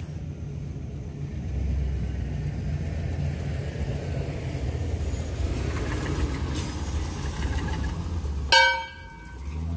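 A steady low engine-like rumble, then about eight and a half seconds in a sudden loud metallic clang that rings briefly, from the steel tube farm gate and its chain.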